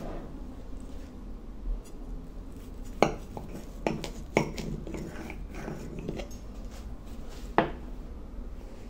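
Metal kitchen knife clinking and scraping against a ceramic plate while slicing a layered pancake cake, with a handful of sharp clinks, the loudest about three seconds in and near the end.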